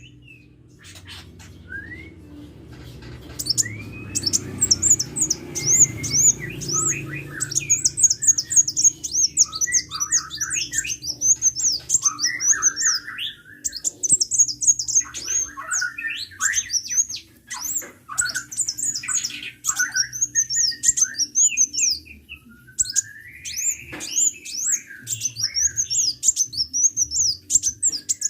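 Sunbird (Indonesian 'kolibri') singing vigorously: rapid runs of high, sharp notes repeated over and over, mixed with lower chirps, over a faint low hum.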